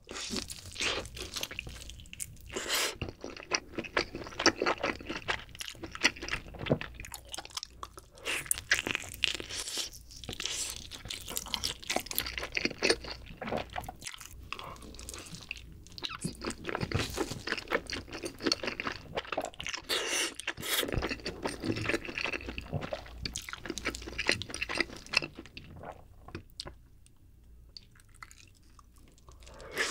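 Close-miked eating of a glazed grilled whole chicken leg: biting, tearing the meat off the bone, and wet, sticky chewing, with dense clicks and smacks throughout. It thins out near the end.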